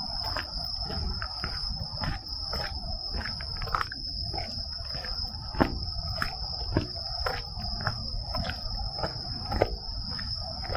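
Night insects trilling in one steady high-pitched tone, over regular footsteps on a trail about twice a second.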